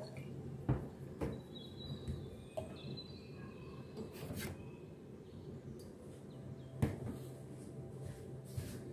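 Kitchen handling sounds: a few sharp knocks and clinks as bottles, measuring spoons and bowls are handled on the counter while dressing ingredients are measured out, over a low steady hum.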